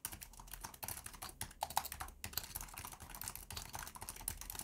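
Rapid, continuous typing on a Razer Huntsman V2 tenkeyless gaming keyboard with linear optical switches: a fast run of key clacks.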